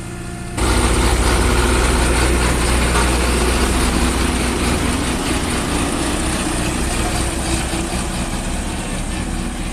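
Heavy diesel engine of a road roller running, with a deep low rumble. A lower steady engine drone jumps sharply to a much louder, denser sound about half a second in, which then eases off slowly.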